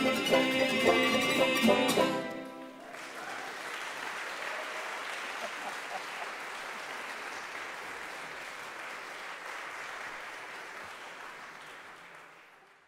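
Acoustic string band with mandolin and guitars finishing the song on a final strummed chord about two seconds in, followed by steady audience applause that fades out near the end.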